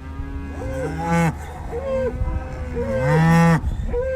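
Cattle mooing: several long, drawn-out calls, the loudest about a second in and about three seconds in, with another starting near the end. A steady low rumble runs underneath.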